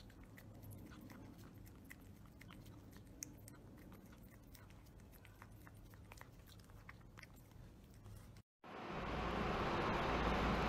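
A cat licking a creamy treat from a squeeze tube held out by hand: many quick, soft, wet licking clicks. About eight and a half seconds in, a cut brings a louder, steady rushing noise.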